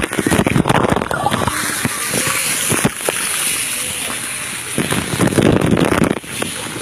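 Water splashing and sloshing close to a phone's microphone, with wind buffeting the microphone. There are louder bursts of splashing just after the start and again around five to six seconds in.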